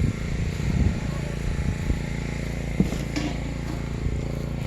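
Generator engine running steadily in the background with a low, even hum. A few short sharp sounds cut in around three seconds in.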